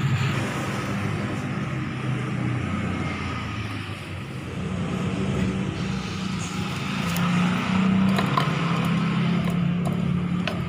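An engine running, its low note wavering and growing louder about halfway through, with a few light clicks near the end.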